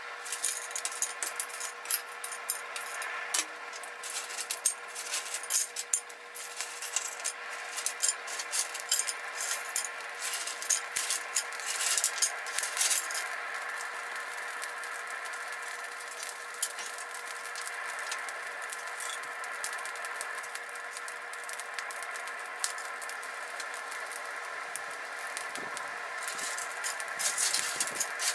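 Wood kindling and coal crackling and popping as the fire catches in a blacksmith's coal forge. The pops come thick through the first half, thin out, and pick up again briefly near the end, over a steady hum.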